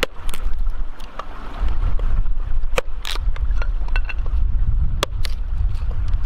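Wind buffeting the microphone in a steady low rumble, with irregular sharp clicks and knocks over it.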